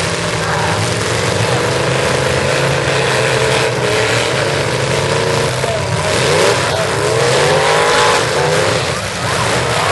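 Several demolition derby cars' engines revving hard together, their pitch rising and falling as the cars push and ram against each other, loudest around six to eight seconds in.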